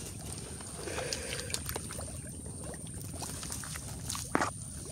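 Water sloshing and trickling as someone wades through shallow swamp water among branches, with scattered cracks of twigs and brush. There is one sharper snap a little past four seconds in.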